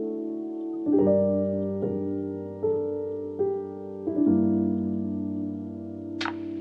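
Lofi piano background music: soft, sustained piano chords changing about once a second, with a couple of sharp percussion hits near the end as the beat comes in.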